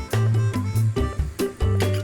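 Upbeat background music with bass, plucked guitar and a steady beat.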